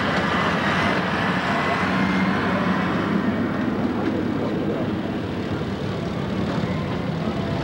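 Diesel farm tractor engine running steadily at a tractor pull, a constant even hum with no revving.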